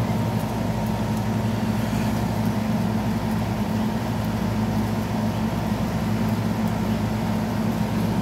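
Window air conditioner running with a steady low hum.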